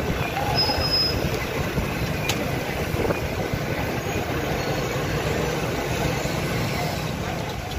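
Busy road traffic noise: motorcycle engines and heavy trucks running, a steady dense rumble.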